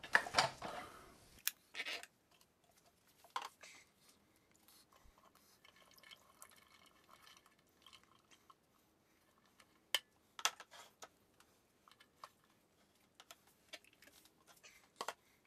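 Soaked vanilla beans being handled and tipped wet from a metal strainer into a plastic blender jar, with the jar's lid taken off: faint scattered clicks, knocks and dripping. The blender motor is not running.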